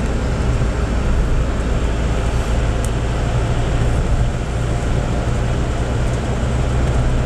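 Steady road noise inside a moving car's cabin: a low engine and tyre rumble as the car drives along at steady speed.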